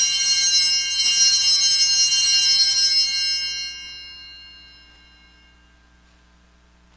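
Altar bells rung at the elevation of the host: a cluster of small bells ringing with many high, clear tones, struck again about a second in, then fading away over a couple of seconds.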